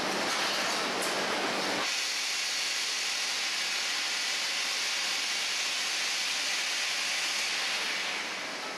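Steady hiss and running noise of a wooden-crate production line's machinery. About two seconds in, the low hum drops away suddenly and a brighter, even hiss carries on.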